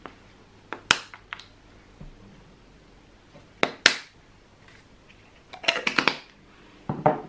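Small spice jars and their lids being handled: four groups of sharp clicks and rattles, the last two longer and more clattery.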